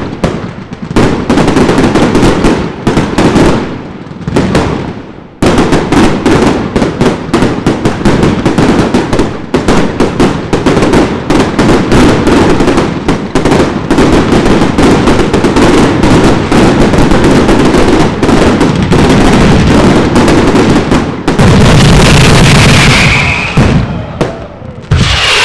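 Fireworks going off in rapid, near-continuous succession: many loud bangs and crackles, with short pauses in the first five seconds. About 21 seconds in comes a dense, loud stretch with a whistling tone.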